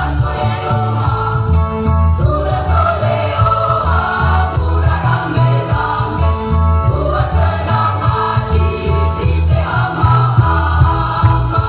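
A mixed school choir singing a lively song in many voices, with a steady jingling percussion and a heavy low beat keeping time.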